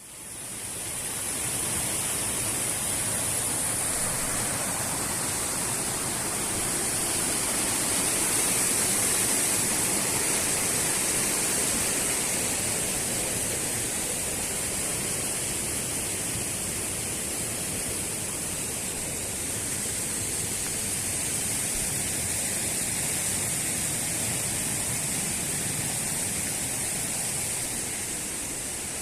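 Waterfall rushing steadily: the even roar of falling water on the Allerheiligen cascades of the Lierbach, fading in at the start.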